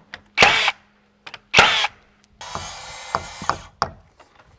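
Metabo cordless 21-degree framing nailer firing twice, about a second apart, driving full round-head nails to tack a sheathing panel to the framing. Near the end come several light hammer taps on the sheet.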